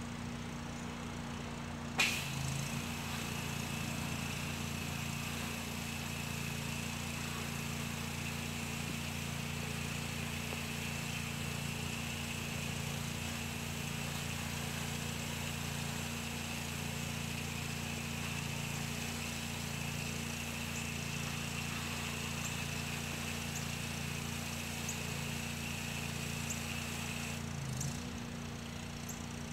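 Pressure washer's engine running steadily. About two seconds in, a click and the steady hiss of the wand's water spray start; the spray runs on and cuts off shortly before the end.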